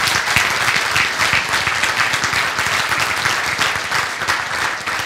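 Audience applauding with steady clapping that begins to thin out near the end.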